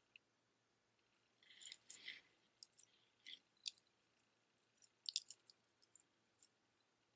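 Faint handling sounds of costume jewelry: a short rustle with clicks about two seconds in, then scattered light clicks and clinks of beads and metal charms.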